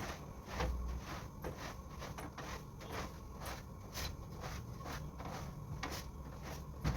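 Household cleaning: objects being handled and shifted, a quick, irregular run of small clicks and knocks over a low rumble.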